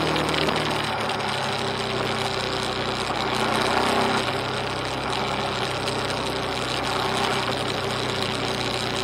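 Motorcycle engine running steadily at cruising speed on the road, mixed with a constant rush of wind noise on an onboard camera.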